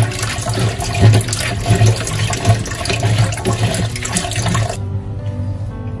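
Tap water running into a plastic colander bowl while hands rub and rinse a handful of cashews and other dried soup ingredients; the water cuts off about three-quarters of the way through. Background music plays underneath.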